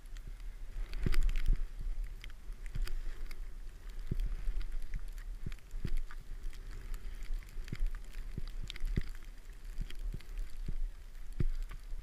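Skis running through deep powder snow, with wind rumbling on the microphone and frequent sharp knocks spread irregularly through the run.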